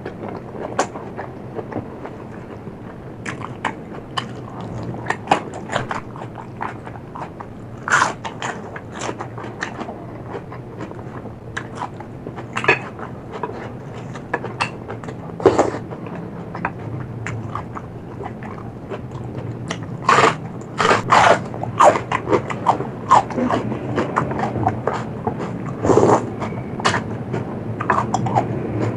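Close-miked chewing and crunching of food in the mouth: irregular crisp crunches and wet mouth clicks, louder in a run about two-thirds of the way through. A steady low hum lies underneath.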